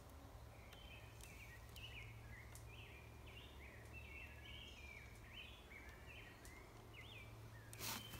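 A songbird singing a continuous string of short whistled phrases over a faint steady low hum, with a brief rustling noise near the end.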